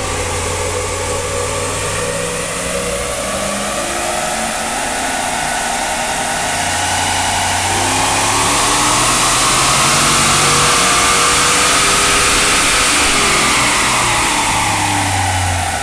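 Stock naturally aspirated 5.7-litre HEMI V8 of a Ram 1500, with stock exhaust, making a dyno pull. The engine note climbs steadily to a peak about ten seconds in, then falls away near the end as the pull finishes. This is the first of three back-to-back pulls, made before the engine has built up heat.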